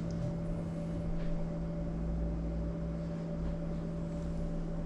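Steady machine hum: a constant low drone with a fixed higher tone above it, unchanging throughout, with a few faint rustles.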